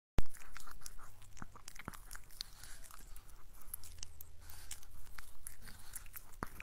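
Chihuahua licking and nibbling at a paw: a run of quick, irregular mouth clicks close up.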